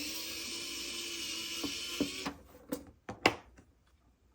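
Cordless electric screwdriver running steadily for about two seconds as it backs out a screw, then stopping, followed by a few sharp clicks of small parts, the loudest near the end.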